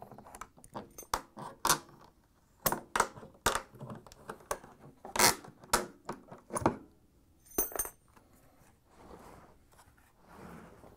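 Metal clamps being pried off the seam of a plastic washer outer tub with a flat blade screwdriver: a run of sharp metallic clicks and snaps as the clips pop free, with a ringing metal clink about two-thirds of the way through. Softer rubbing of the plastic tub follows near the end.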